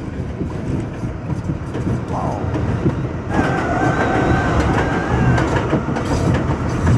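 New York City 7 line subway train running on elevated steel track, heard from on board: a steady rumble with the clack of wheels over rail joints. About three seconds in, a steady high squeal joins it for a couple of seconds.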